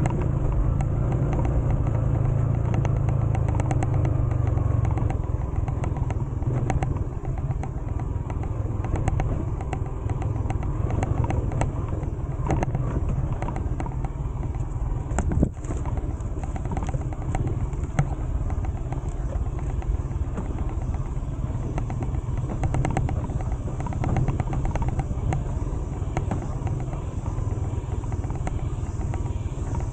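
Motorcycle running while being ridden, a steady low rumble with frequent small knocks and rattles; one sharp knock about halfway through.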